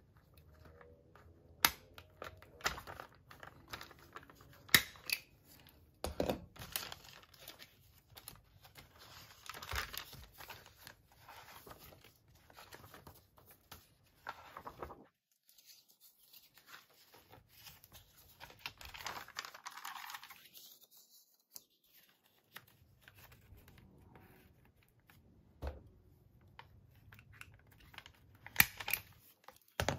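Paper journal pages rustling as they are handled and turned. A small handheld stapler snaps sharply through paper three times: twice early and once near the end.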